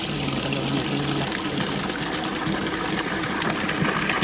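Water running steadily, a continuous rush with no breaks.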